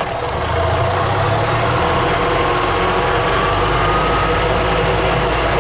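1995 EZ-GO Workhorse gas utility cart's engine running steadily, with a faint whine that rises slowly in pitch partway through.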